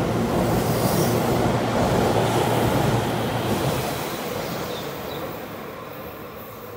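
Keihan 3000 series electric train running past. Its loud rumble of wheels and running gear fades away over the second half as the last car goes by.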